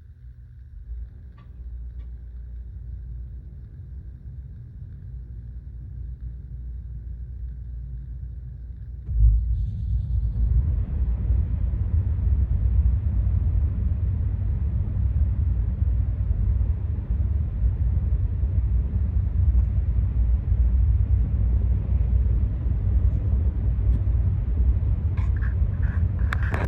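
A steady machine hum. About nine seconds in, a much louder low rumble starts suddenly, joined a moment later by a steady rushing noise, and both keep going.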